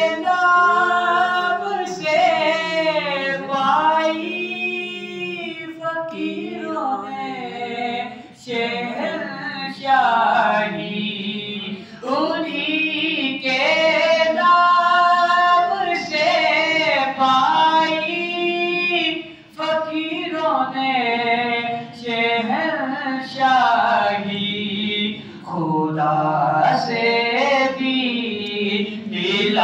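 Naat: a man's solo voice singing an Urdu devotional poem unaccompanied into a microphone, with long held, ornamented notes and brief pauses between lines.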